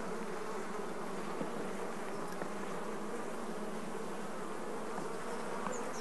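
Steady hum of a honeybee colony in an opened Langstroth hive.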